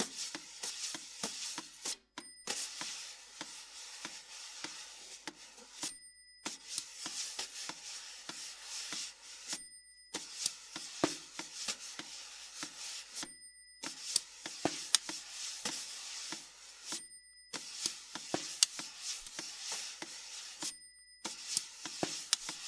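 Prepared snare drum, with a sheet and a cup laid on its head, played with thin sticks: fast, light taps with a scratchy rustle. The playing comes in phrases of a few seconds, each ending in a sudden, complete silence.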